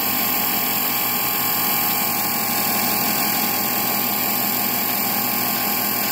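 Sun distributor tester's electric drive spinning a 1967 Oldsmobile 442 W30 distributor at a steady 2000 rpm for the centrifugal advance check: an even, unchanging mechanical whir.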